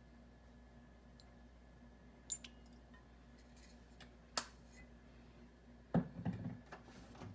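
Kitchen handling sounds: two sharp clicks or clinks a couple of seconds apart, then a dull knock followed by about a second of softer handling noise near the end.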